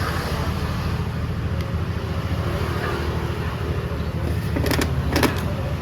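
SYM Mii 110 scooter engine running steadily at idle, with two short sharp rattles near the end.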